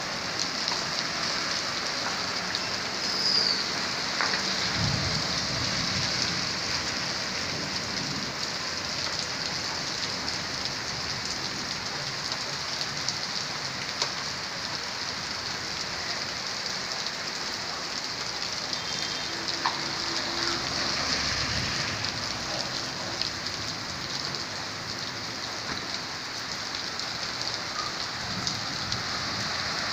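Rain falling steadily on a street and wet pavement.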